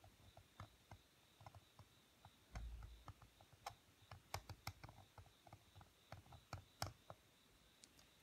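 Seal-carving knife cutting into a stone seal held in a seal vise: faint, irregular clicks and small scrapes a few times a second as the blade chips away stone, with a dull knock about two and a half seconds in.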